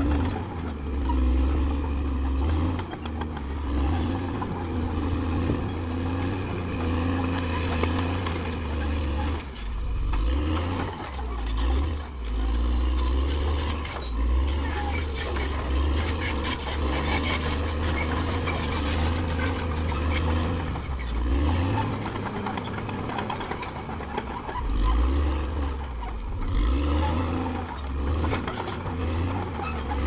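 CAT D6R XL crawler bulldozer's diesel engine running under working load, its low drone rising and dropping every few seconds as the machine pushes and shifts.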